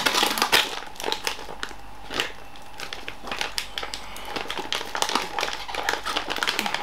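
Crinkling and rustling of a microwave pizza-slice bag being handled and pulled at, with irregular crackles that are loudest in the first second. The heated slice is sticking inside the bag.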